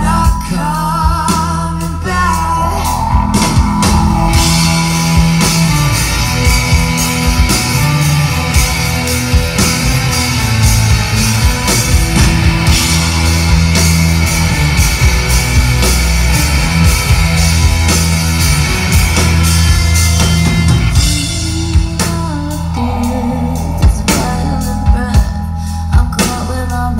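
A rock band playing loud and live, with electric guitars, bass, a drum kit and singing, as heard from the crowd. The full dense sound drops back a little past twenty seconds in.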